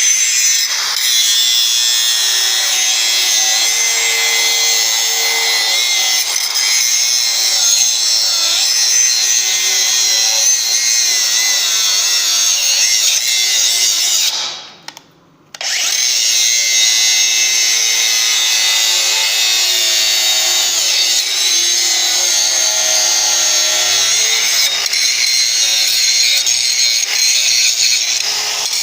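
DeWalt DCG414 FlexVolt cordless angle grinder grinding down steel weld seams, a loud steady grind. About halfway through it stops for about a second, then starts up and grinds again.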